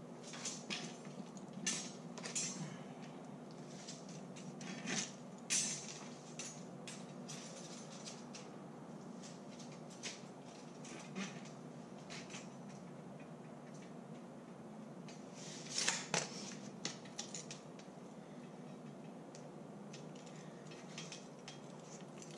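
Threaded rod (all thread) being trimmed with a hand threaded-rod cutter: scattered metallic clicks and clanks, with a louder cluster of them about sixteen seconds in.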